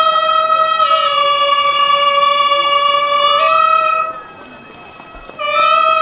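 Hichiriki, the double-reed pipe of gagaku, playing a long held note that slides down a little about a second in and back up a little past three seconds. It breaks off about four seconds in, and a new note slides in near the end.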